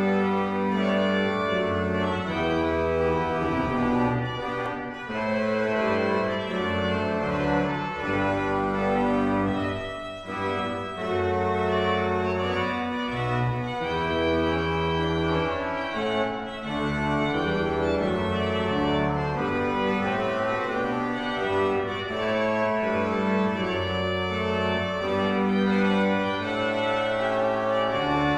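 Pipe organ playing: full, sustained chords over a moving bass line, with a short break in the phrase about ten seconds in.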